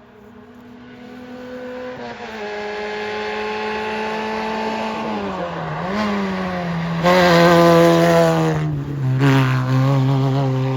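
A historic rally car's engine getting louder as it approaches. Its note holds steady, falls away and climbs back about five to six seconds in, then it goes loud and hard on the throttle about seven seconds in. After a brief lift and a second burst of throttle it settles to a lower, steady note.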